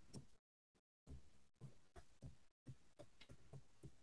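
Faint computer-keyboard keystrokes: a string of about ten soft, separate taps, spaced unevenly, over near silence.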